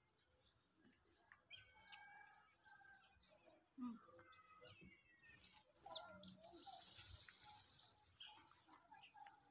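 Birds chirping: a run of short, high chirps with a few whistled notes, then a continuous high, rapidly pulsing trill from about six seconds in.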